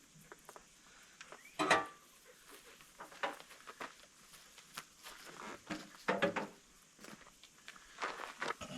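Scattered light knocks, clinks and shuffles of hands and tools working on an old tractor, about a dozen short sounds, the loudest a knock about two seconds in.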